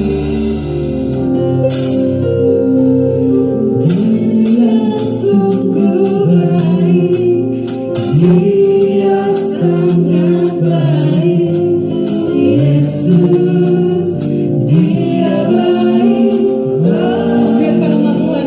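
Live praise-and-worship band playing a song: voices singing over an acoustic drum kit, keyboard, electric guitar and bass guitar, with steady cymbal strikes keeping time.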